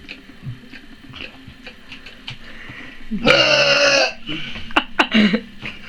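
A person's forced 'super burp': one loud, voiced burp pushed out like a shout, lasting about a second, about three seconds in. A few short clicks follow.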